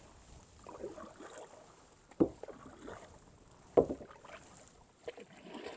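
Kayak paddle strokes in the water: two sharp strokes about a second and a half apart, over a faint background.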